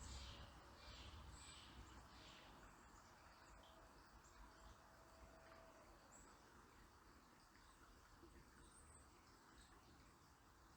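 Faint river water running with a small bird calling: a quick series of high notes that stops about two seconds in, then a few scattered chirps.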